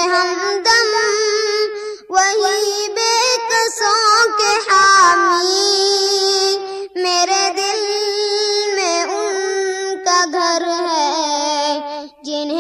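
Urdu naat sung by a high-voiced solo reciter, with long ornamented held notes and vibrato. There are short breaks for breath about two, seven and twelve seconds in.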